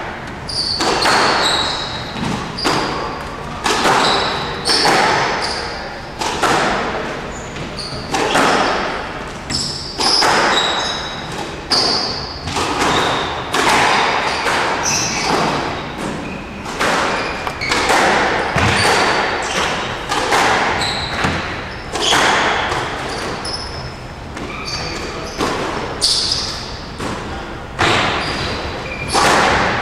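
Squash rally: the ball cracking off racquets and the court walls about once a second, echoing in the court, with short high squeaks of players' shoes on the floor between hits.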